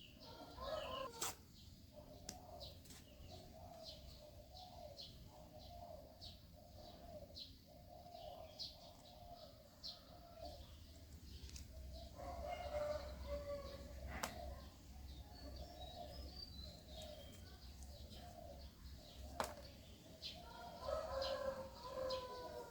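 Faint bird calls: short, repeated mid-pitched calls with quick high chirps over them, and a few sharp clicks.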